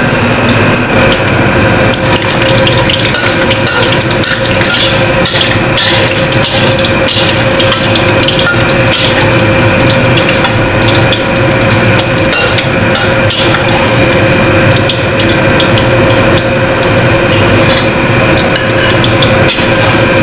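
Flour-battered tilapia pieces frying in hot oil in a steel wok: a steady, dense sizzle with many sharp crackles, and the scrape of a metal spatula turning the fish. A steady hum runs underneath.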